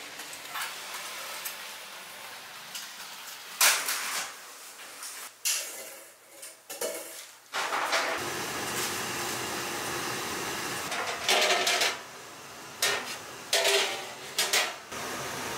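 Clanks and clatter of large aluminium stockpots and their metal lids being handled, a few knocks with a short ring, over a steady kitchen hum.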